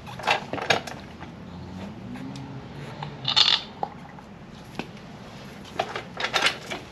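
Metal hand tools and parts clinking and knocking in small clusters, with a short scraping rush about halfway through.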